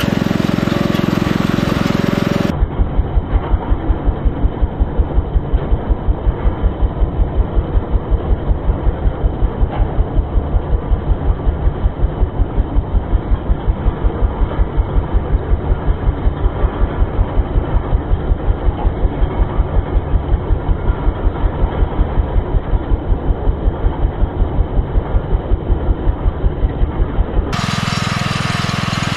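Mower tractor's Wisconsin engine running with a steady, regular beat. For most of the time the sound is slowed-down and muffled, pulsing about three times a second. Near the start and again near the end it is heard at normal speed.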